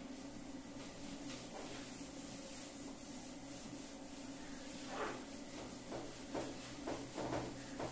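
Handheld whiteboard eraser rubbing across a whiteboard, wiping off marker writing in short strokes, with several quicker, louder strokes in the last few seconds.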